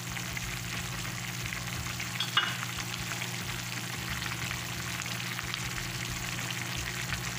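Pork binagoongan sauce bubbling and crackling steadily in a frying pan as it simmers, over a low steady hum. A single short clink about two and a half seconds in.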